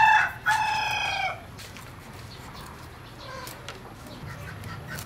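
Rooster crowing: the crow, begun just before, ends in one long held note that stops about a second and a half in. After it come only faint clicks against the background.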